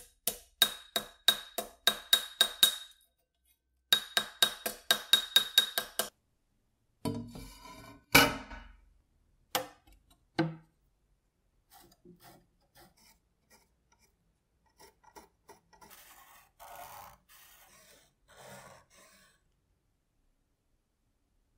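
Hammer striking a rusty steel blade on a steel block held in a vise: two runs of quick ringing blows, about four a second. These are followed by a few single metal knocks and quieter scraping as rusty metal is handled.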